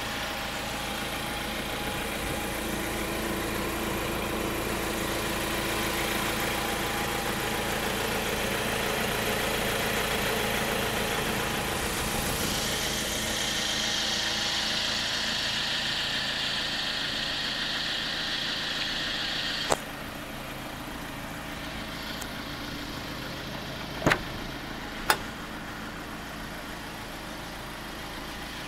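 Ford Transit minibus diesel engine idling steadily. Near the end there are a few sharp clicks as the driver's door is opened.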